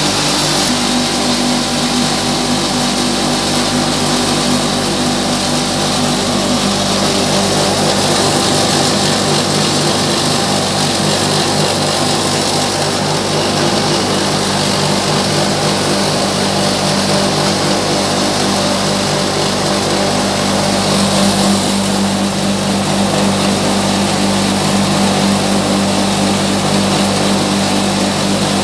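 Electric-motor-driven grain mill running steadily, a loud, even machine hum under a dense whirring hiss.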